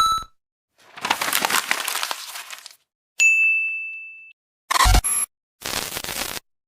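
A string of separate short sound effects: about two seconds of crackling noise, then a ding that rings and fades over about a second, then a short burst with a low thump, and a last short burst of noise.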